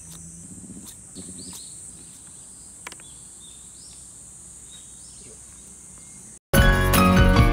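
Outdoor ambience of a steady high insect drone with scattered bird chirps and one sharp click about three seconds in. About six and a half seconds in it cuts off and loud music starts.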